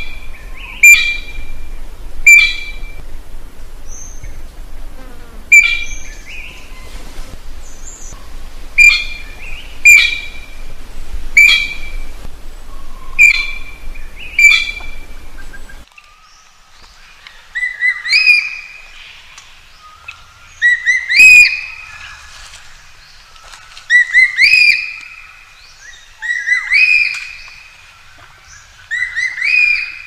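Blue magpie calling: a series of sharp, repeated calls about every one and a half seconds. About halfway through, the background changes abruptly and longer, louder calls follow roughly every three seconds.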